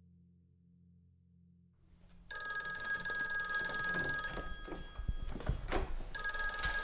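Telephone ringing: a first ring of about two seconds starts a little over two seconds in, and a second ring comes near the end after a pause. A faint low hum comes before the first ring, and there are a few soft knocks between the rings.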